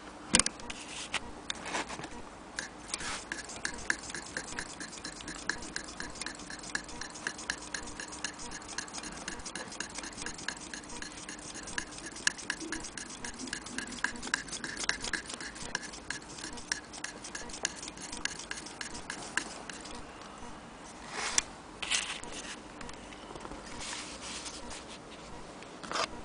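Willcox & Gibbs single-thread chain-stitch sewing machine running, its mechanism giving a rapid, steady clicking that stops about 20 seconds in. A few louder separate knocks follow near the end.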